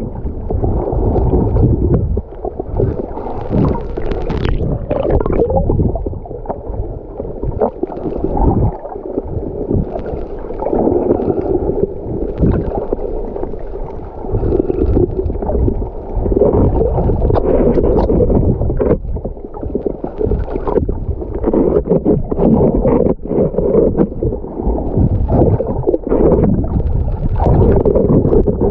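Muffled gurgling and sloshing of sea water heard with the microphone underwater, surging and fading unevenly.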